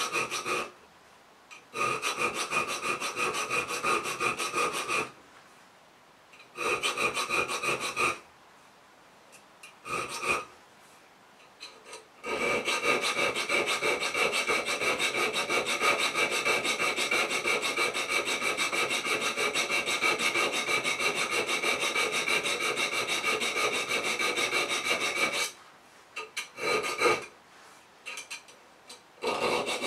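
A small file rasping across the steel spine of a knife clamped in a vise, in quick short strokes that cut decorative notches, with a steady ringing tone under the scraping. It comes in runs broken by short pauses, the longest run lasting about thirteen seconds from a little before the middle.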